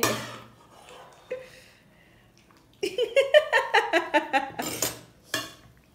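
A woman laughing in a quick run of bursts about three seconds in, after a quiet stretch.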